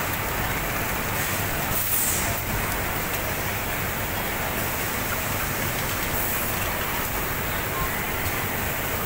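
Steady mechanical din of a garment factory sewing floor: many industrial sewing machines running together, blending into an even hiss and hum.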